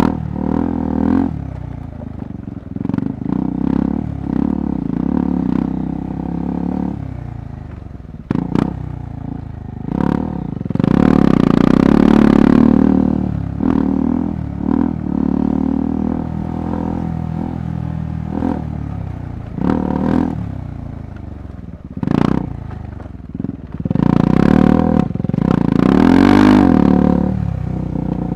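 KTM 390 Adventure's single-cylinder engine running as the bike rides a rough off-road trail, with the throttle opened up hard twice, about ten seconds in and again near the end. Sharp clattering knocks come through between.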